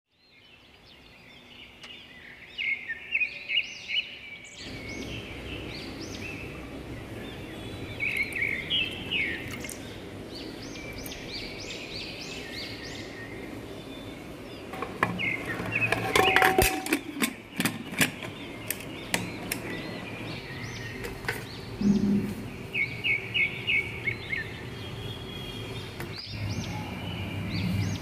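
Small birds chirping in short runs of quick high notes, repeated several times over a steady background hiss, with a cluster of sharp clicks and knocks about halfway through.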